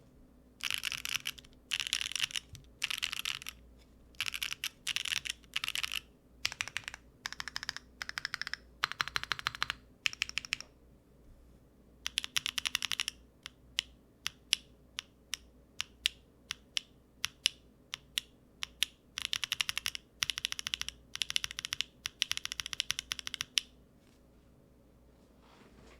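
Typing on a Neo70 mechanical keyboard with BSUN Snow Diane linear switches, aluminium plate, no foam and GMK keycaps: fast bursts of keystrokes with short pauses, a stretch of single, evenly spaced key presses in the middle, then the typing stops near the end.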